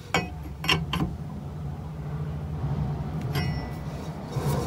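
Metal clinks of a wrench on the rear wheel-hub nut: three sharp taps within the first second, then two more later, over a steady low hum.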